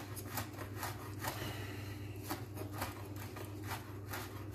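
Chef's knife chopping fresh rosemary on a wooden cutting board: a run of light knocks of the blade on the board, about three a second, with a short pause in the middle.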